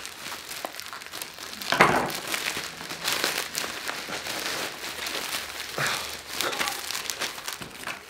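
Plastic mailing bag and black plastic wrapping crinkling and rustling as a parcel is pulled at and worked open by hand, with a louder crackle about two seconds in.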